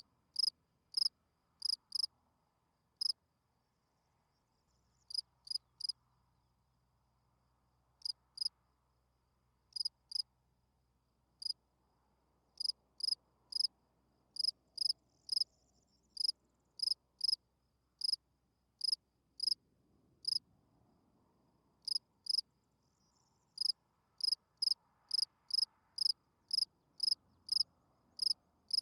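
A field cricket (spring field cricket) chirping: short, high chirps, irregularly spaced with gaps of a couple of seconds at first, then running closer together at about two a second. This is a male's calling song, sung to attract females.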